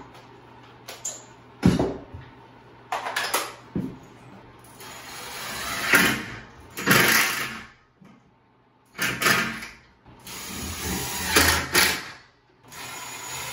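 Ryobi cordless drill driving screws through a door jamb into the framing: a few knocks, then the drill runs in three spells of one to three seconds each.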